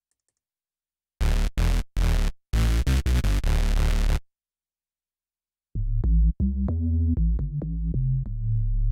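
Native Instruments Massive synth bass patches played from a keyboard. About a second in, a bright, buzzy patch plays a few short, chopped notes for three seconds; after a pause, a deep bass patch plays a run of low notes, each starting with a small click.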